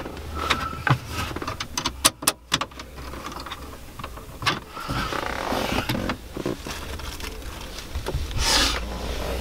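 Hands fitting a plastic stereo faceplate and trim into a car dashboard: a quick run of sharp clicks and knocks in the first few seconds, then scraping and rustling of the trim.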